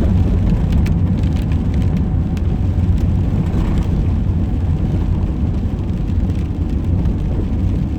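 Steady low rumble of a car driving, heard from inside the cabin, with a few faint ticks in the first couple of seconds.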